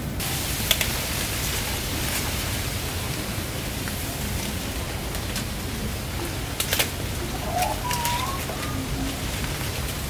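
Leaves and branches rustling, with a few sharp cracks, as someone climbs a tree, over a steady outdoor hiss. A short wavering bird call comes about eight seconds in.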